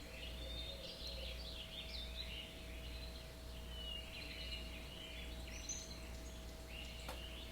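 Several birds chirping and twittering at once, fairly quiet, over a steady low hum.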